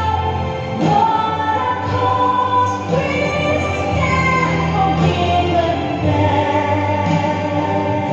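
Slow gospel-style song with choir singing in long held notes over a steady bass accompaniment.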